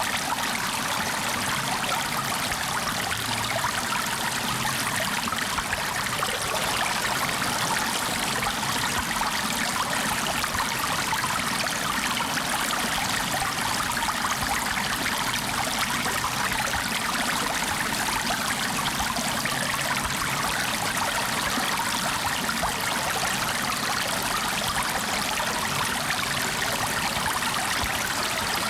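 Flowing water running steadily: an even, unbroken hiss with no changes in level.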